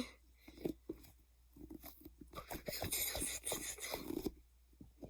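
A large fidget toy being squeezed and handled, giving an irregular run of soft crackly, crunching noises.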